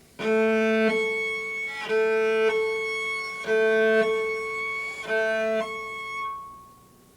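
Cello natural harmonics at the five-part division of the string: the same high pitch, two octaves plus a major third above the open string, is bowed four times. Each harmonic alternates with a shorter, lower note, and the last one fades away.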